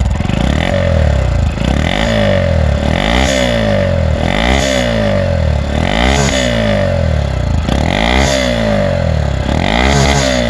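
Honda Monkey 125's air-cooled single-cylinder 125 cc four-stroke engine, stock exhaust, revved in a series of light throttle blips about every second and a half, each rising and falling back to idle.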